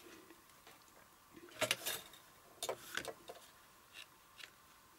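A few light, scattered clicks and taps of paper-crafting materials being handled and set down on a work table.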